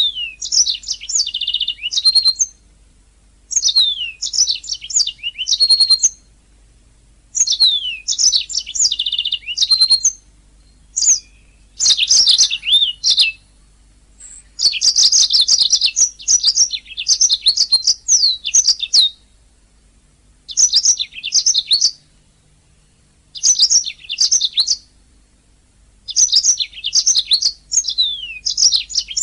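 Domestic canary singing: rapid high trills and chirps with quick falling whistles, in bursts of one to four seconds separated by short pauses.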